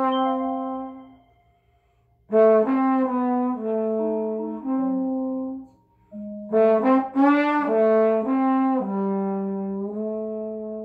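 Trombone improvising in phrases of single notes: one note dies away, a pause, then two runs of notes, ending on a long held note.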